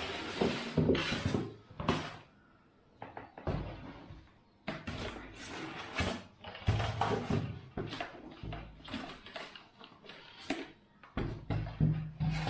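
A cardboard box and its packing being opened and handled, with irregular rustles, scrapes and knocks.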